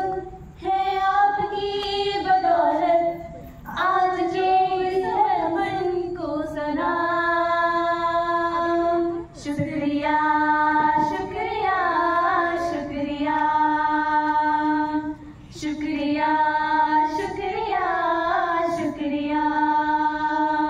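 Women singing a slow song unaccompanied into microphones, holding long notes in phrases broken by short pauses for breath.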